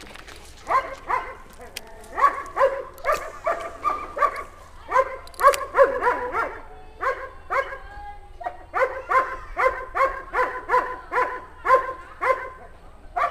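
A dog barking over and over, in quick runs of two to three barks a second, with a brief pause about eight seconds in.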